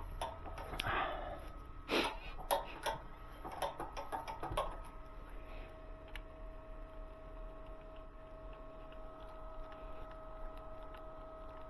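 Small clicks and taps of a hand screwdriver and metal parts while a small brass threaded insert is driven into a wooden frame. They are clustered in the first five seconds, the loudest about two seconds in. After that only a faint steady hum remains.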